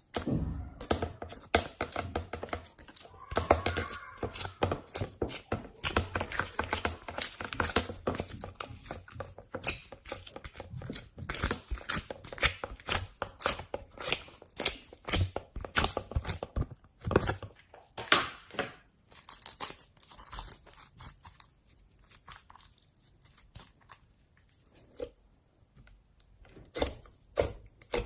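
Hands working slime, a dense run of rapid clicks and pops that thins out to scattered ones over the last several seconds.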